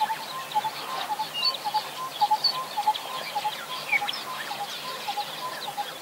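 Birds calling: one repeats a short low note about three times a second while others add scattered higher chirps.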